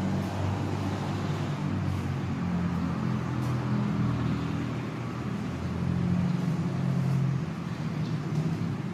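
Low hum of motor vehicle engines running, its pitch shifting every second or two, with road traffic noise.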